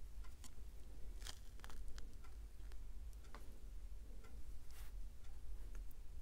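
Vanilla cube pie's flaky laminated crust being pulled apart by hand: scattered soft crackles and light ticks, a few at a time, over a faint low hum.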